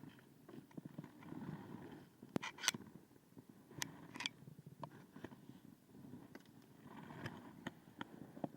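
Handling noise aboard a fishing kayak: scattered sharp knocks and clicks over a low rumble. The loudest knocks come in pairs, a little over two seconds in and again about four seconds in.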